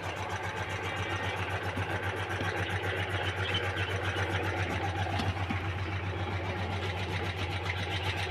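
An engine running steadily at idle: a low, even hum with a fast, regular pulse.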